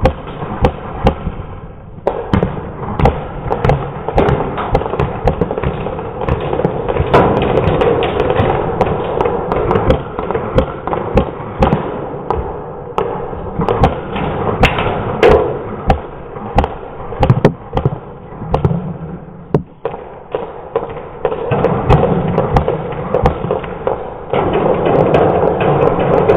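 Irregular thumps and taps over a steady rustle: footsteps and gear knocking against an airsoft rifle as the player moves.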